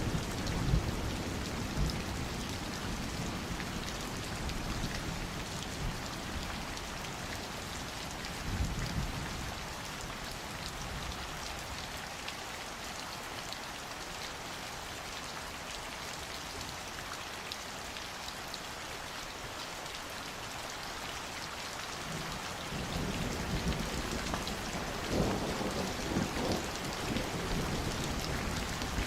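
Steady summer rain falling, with drops pattering on surfaces. Low rumbles of thunder swell at the start, briefly about a third of the way in, and again near the end.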